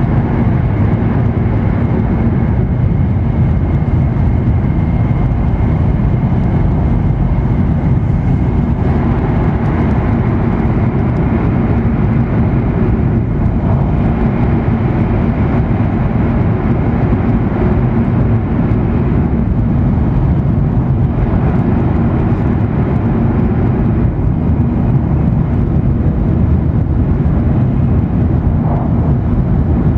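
Steady running noise of an E7 series Shinkansen at speed, heard inside the passenger cabin: a continuous low rumble of wheels, rails and air. A faint high whine runs through the first several seconds.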